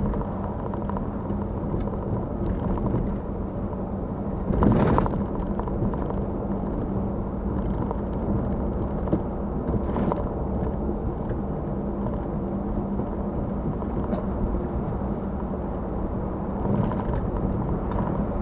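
Mitsubishi Pajero driving, heard from inside the cabin: steady engine hum and road noise, with a louder thump about five seconds in and lighter knocks later.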